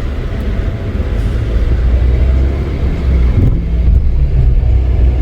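Car engine and road noise heard from inside a moving car: a steady low rumble.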